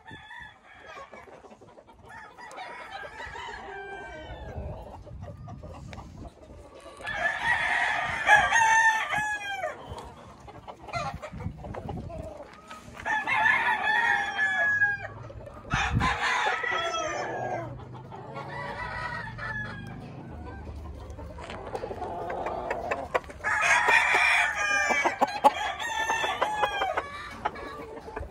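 Several game roosters crowing in turn from the pens, the loudest crows about seven, thirteen and twenty-four seconds in, with fainter crows between them.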